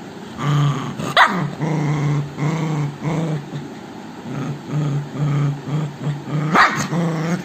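Dog growling over a bone in short repeated pulses, about two a second, with two sharp high yips, one about a second in and one near the end.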